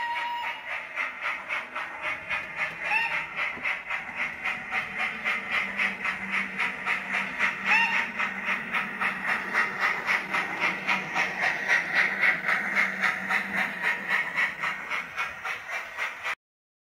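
DCC sound-fitted model steam locomotive's speaker playing steady rhythmic exhaust chuffs with hiss, about four beats a second, as the locomotive runs. Two short rising tones sound about 3 and 8 seconds in, and the sound cuts off suddenly near the end.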